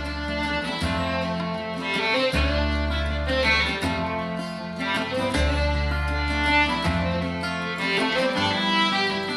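Instrumental country music: fiddle melody over guitar and a bass line.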